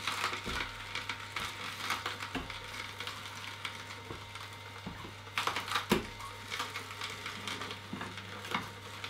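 Omega 8228 horizontal slow juicer running, its auger crushing carrot pieces pushed down into the hopper with the plunger: a steady low motor hum with irregular crunching and cracking, loudest about five and a half to six seconds in.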